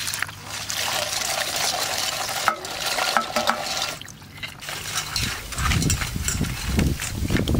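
Water poured from a bowl splashes through chopped rice field crab pieces in a stainless steel colander. About five seconds in it gives way to a hand stirring and rubbing the wet crab pieces against the colander, in irregular splashy strokes.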